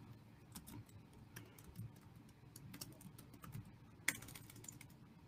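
Faint typing on a computer keyboard: irregular soft key clicks, with one sharper click about four seconds in.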